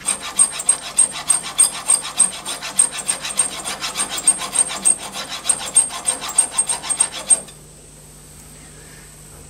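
A used smooth hand file, cutting dry on the end of a small metal rod held in a lathe collet and riding on the rollers of a roller filing rest. It makes quick, regular scraping strokes, about five a second, that stop about seven and a half seconds in.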